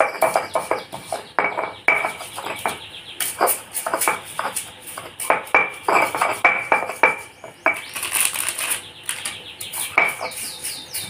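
Stone mortar and pestle (cobek and ulekan) pounding and grinding, with irregular knocks and scrapes of stone on stone as tempe and crackers are crushed into a fishing-bait mix.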